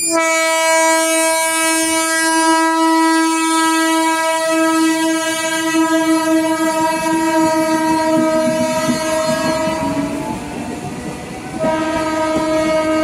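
Eastern Railway electric local train (EMU) sounding its horn in one long, steady blast as it passes, over the rumble of its wheels on the rails. The horn breaks off about ten seconds in and sounds again a second later.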